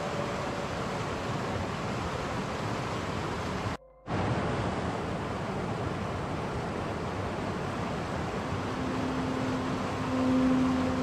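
Steady rushing of a rocky mountain stream over stones. It cuts out briefly about four seconds in. Near the end, held low tones of ambient music come in faintly over the water.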